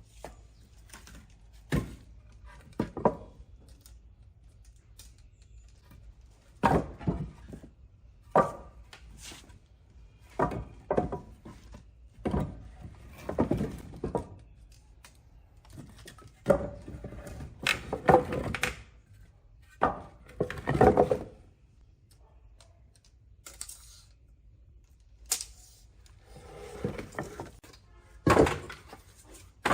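Old wooden bars or boards being handled, set down and knocked together, giving irregular hollow thunks, some of them drawn out.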